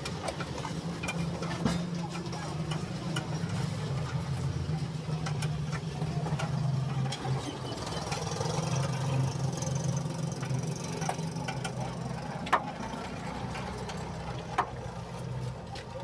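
An engine running steadily with a low hum, with scattered small clicks and two sharp knocks near the end.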